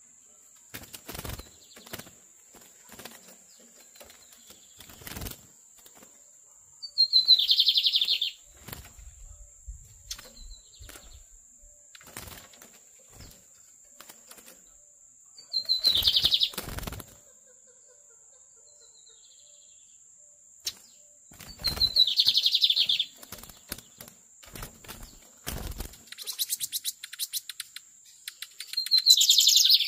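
Lined seedeater (bigodinho) singing loud, short phrases of song, four times, each about a second long, with a longer burst near the end. Between the phrases come scattered sharp knocks and wing flutters of birds moving about the cage.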